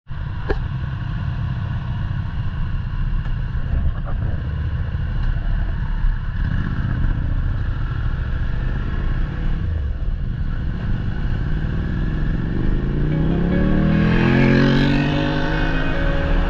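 Motorcycle engine and wind noise heard from on board while cruising at a steady pace. About twelve seconds in, the engine accelerates, its pitch rising for a couple of seconds before holding steady.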